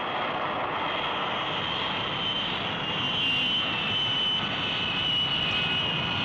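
Jet fighter engine sound effect as the aircraft flies low: a steady rushing noise with a high whine held over it.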